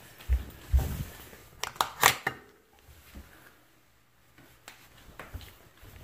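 A few dull thumps, then a quick run of sharp clicks about two seconds in, from a handheld phone being handled and moved about. A quiet stretch follows in the middle, then a few faint ticks.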